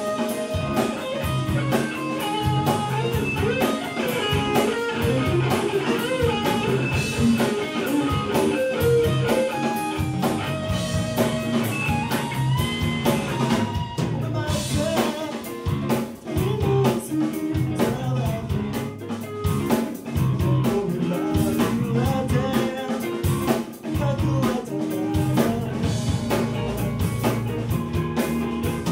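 A rock band playing live: electric guitars through amplifiers, bass and a drum kit.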